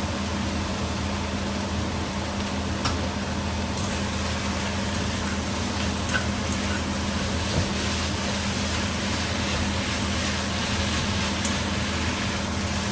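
Minced beef sizzling steadily in a pot with onions and garlic, over a steady low hum, with a few light clicks of a utensil.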